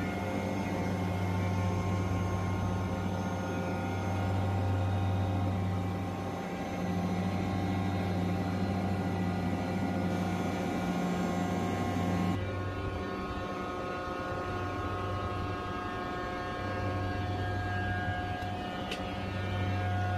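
York variable-speed-drive air-cooled screw chiller running: a steady machine hum, strongest low down, with several steady tones above it. About twelve seconds in the sound changes abruptly, the high hiss dropping away while the hum carries on.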